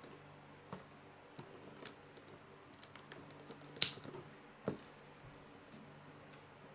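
LEGO plastic pieces clicking as the wheels are pressed onto a small train wagon: a few scattered snaps and taps, the loudest near the middle, over a faint steady hum.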